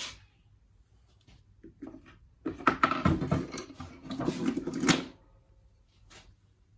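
Clattering and knocking of tools and engine parts being handled, from about two and a half to five seconds in, ending in one sharp knock.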